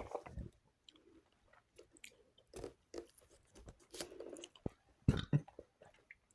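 Mouth sounds of someone tasting juice: sips and swallows with irregular lip smacks and tongue clicks, a little louder about five seconds in.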